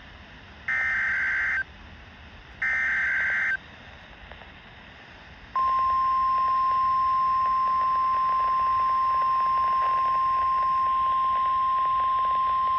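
Emergency Alert System SAME header: two short bursts of warbling data tones, each about a second long. After a pause of about two seconds, the steady single-pitched warning alarm tone of NOAA Weather Radio starts, signalling that a tornado warning is about to be read.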